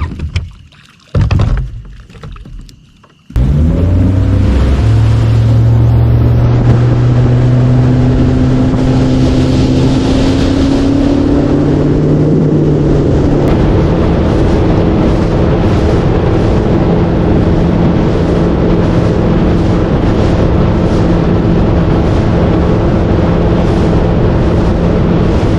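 A few knocks, then about three seconds in a boat's outboard motor comes in suddenly and runs loud, its pitch climbing for several seconds as the boat picks up speed, then holding steady. Wind rushes over the microphone.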